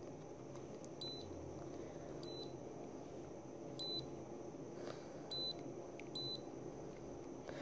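GoPro camera's button beeps: five short, high electronic beeps at irregular intervals as its menu is worked through the waterproof housing to delete videos.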